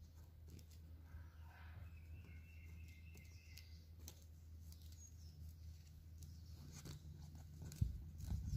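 Faint rubbing and clicking of plastic basket-weaving wire being pulled tight through the weave by hand, over a low steady hum. Louder handling thumps come in near the end.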